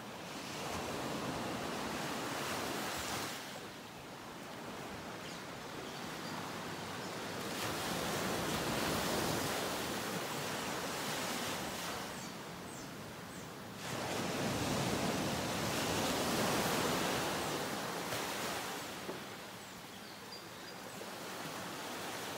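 Ocean surf: waves rolling in and washing back up the beach, swelling and fading every six or seven seconds.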